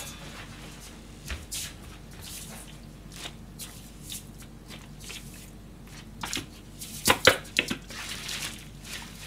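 Kitchen paper rustling and crinkling as raw chicken liver pieces are wrapped in it to blot off excess moisture, with a cluster of louder, sharper crackles about seven seconds in.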